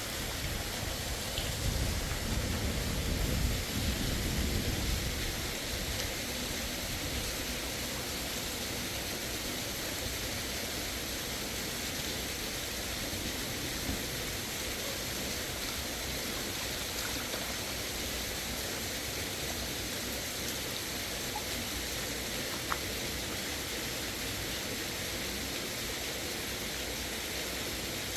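Steady, even hiss of running water, with a low rumble in the first few seconds and a single faint click near the end.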